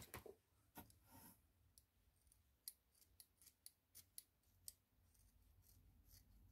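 Scissors snipping through the frayed ends of a doll's hair, cutting straight across: a run of faint, quick snips.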